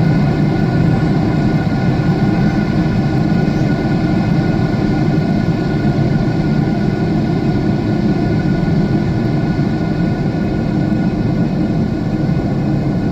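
Jet airliner cabin noise in flight: a steady, deep rush of engine and airflow noise with a few faint steady whining tones above it.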